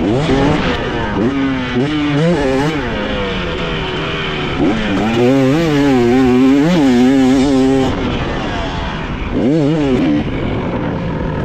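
Motocross dirt bike engine revving up and down again and again as it is ridden around the track. The revs are loudest and held highest in the middle, with one quick rise and fall near the end.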